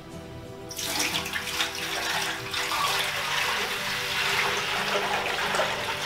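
Water poured from a plastic pitcher into the Sirena vacuum's plastic water basin to fill it to the minimum level, a steady pour that starts about a second in.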